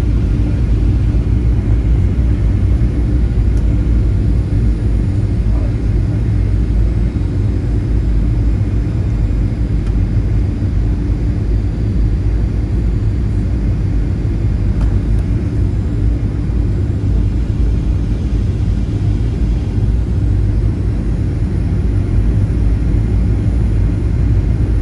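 Airliner noise: a steady low rumble with a faint constant hum, without a break or a clear impact.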